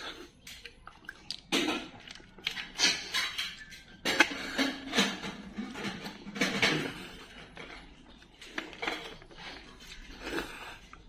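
Cooked snails being sucked and slurped out of their shells, in a string of short, irregular bursts, loudest in the first half, with shells clicking against the plate.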